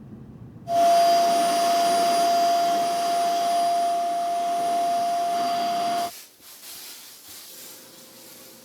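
A loud, steady hiss with one steady whistle-like tone, starting suddenly about a second in and cutting off abruptly after about five seconds. Fainter scattered sounds follow.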